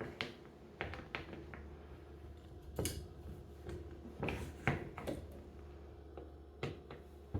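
Scattered light clicks and knocks, roughly a dozen spaced irregularly, from a golf wedge being handled and set into the clamp of a loft-and-lie machine, over a low steady hum.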